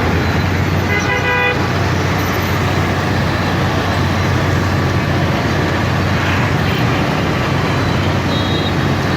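Steady road-vehicle engine and traffic noise, with a short horn toot about a second in.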